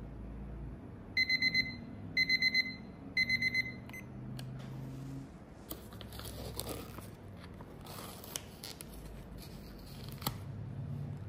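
Apple-shaped digital kitchen timer sounding its time-up alarm: three short runs of about four quick, high-pitched beeps. After that comes the soft crinkle and crackle of the foil-lined paper lid of an instant noodle cup being peeled back, with one sharp click near the end.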